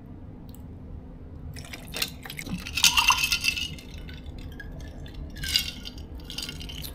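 A drink is poured from a small plastic bottle into a glass, splashing into the glass with a clink. The loudest stretch of pouring runs from about two to three and a half seconds in, and a shorter similar burst of liquid and glass sound follows about five and a half seconds in.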